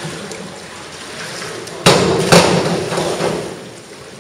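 A diver entering the pool water off a springboard: a sudden loud splash about two seconds in, a second burst of splashing half a second later, then fading over about a second.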